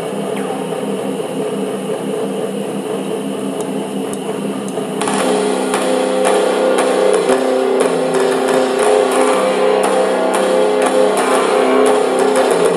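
Instrumental intro of a pop ballad: held, sustained chords for about five seconds, then the full band comes in with guitar and steady drum hits.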